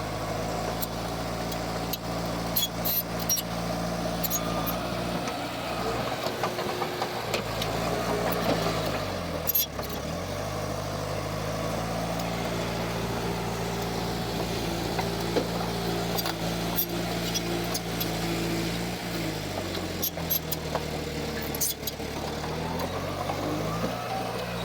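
Heavy diesel engine of earthmoving machinery running. Its pitch drops twice and climbs back up twice, with scattered metallic clanks and knocks.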